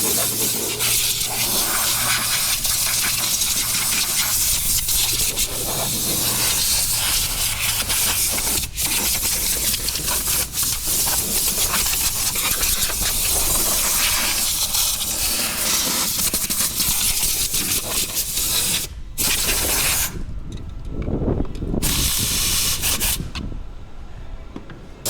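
Loud, steady rushing hiss of air from a cleaning tool working over the part, with a low motor hum beneath it; the hiss breaks off briefly about nineteen seconds in and again a couple of times near the end.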